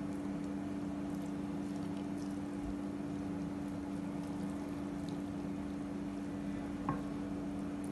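Saffron water poured slowly from a small cup onto parboiled rice in a pot, a faint liquid trickle over a steady low hum. There is one small click about seven seconds in.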